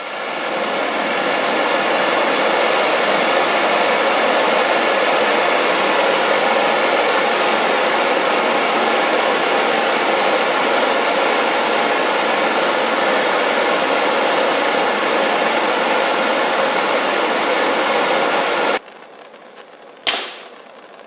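Homemade propane burner, a brass orifice feeding a stainless steel tube, running with a steady loud rush of flame that builds up within the first second. It cuts off suddenly near the end, followed by a single sharp click.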